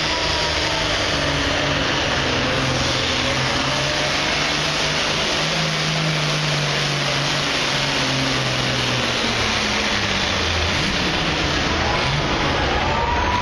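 Pulling tractor's diesel engine running hard at full throttle under load as it drags a weight-transfer sled. The engine note drops about nine to ten seconds in as the pull ends and it throttles back.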